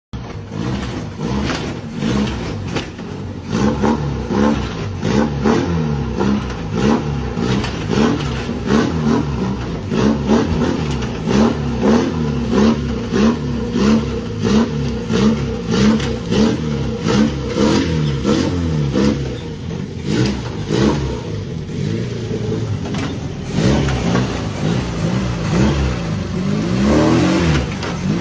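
VW Parati car engine revving in repeated rising sweeps, with a steady run of sharp knocks and rattles throughout. The revving eases off for a few seconds past the middle and surges again near the end.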